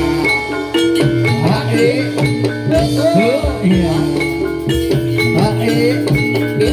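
Gamelan-style music: ringing metallophone notes held over a continuous run of drum strokes.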